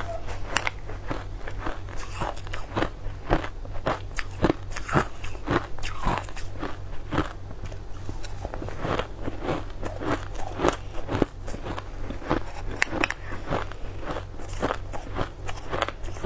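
Crushed ice being bitten and chewed close up: a dense, irregular run of sharp crunches and crackles, over a steady low hum.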